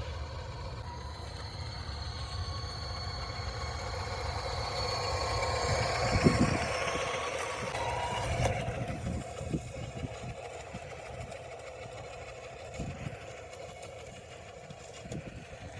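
Toy RC off-road car running, its built-in simulated engine sound effect playing with a steady pitched hum. The sound swells to its loudest about six seconds in, then fades, with a few light knocks along the way.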